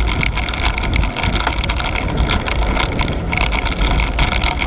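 Wind buffeting the microphone of a camera on a moving road bike, a steady loud rush with a deep rumble, along with tyre and road noise.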